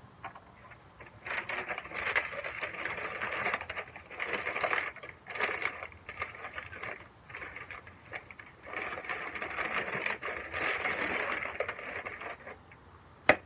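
Butcher paper crinkling and rustling as it is folded and wrapped around meat, in two long stretches, followed by a single sharp knock near the end.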